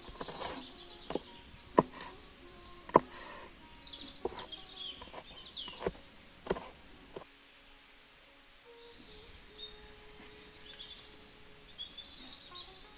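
A large kitchen knife chopping onion and green chilli on a wooden cutting board gives irregular sharp knocks for the first seven seconds or so. After that it is quieter, with birds chirping in the background.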